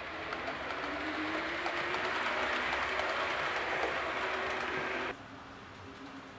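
HO-scale model double-deck electric train running along the track, its motor humming and its wheels rattling on the rails. The hum rises a little in pitch and the sound builds as it passes close by, then cuts off suddenly about five seconds in.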